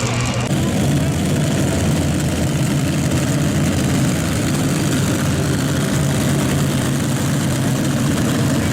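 Heavy modified pulling tractor's multi-engine powerplant running loud and steady.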